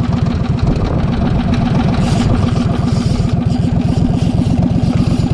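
Small wooden boat's engine running steadily under way, with a rapid, even low pulsing.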